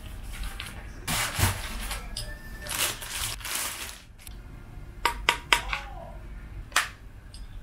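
Sheets of paper rustling as they are shuffled, then a few sharp clicks and knocks as the monitor stand's neck, aluminium with plastic panels, is lifted out of the styrofoam packing and handled. Three clicks come close together about five seconds in, and one more near the end.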